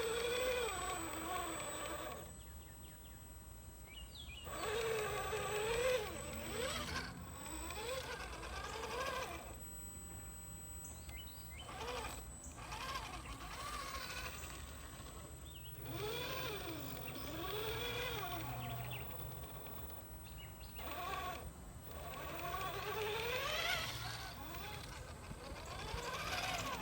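Brushed 12-turn motor and gear drivetrain of an RC crawler truck (Holmes Hobbies Trailmaster Sport 550 in a Traxxas TRX-4 Sport), driven in repeated short throttle bursts: each burst is a whine that rises and falls in pitch with speed, with quiet gaps between. A thin, steady high-pitched tone runs through the first several seconds.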